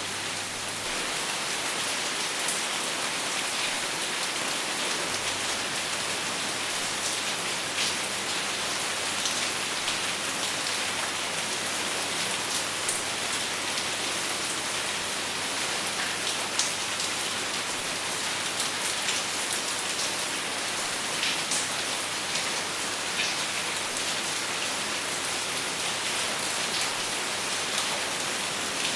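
Steady rain falling, with many individual drops ticking on a surface over a dense, even hiss, and no thunder.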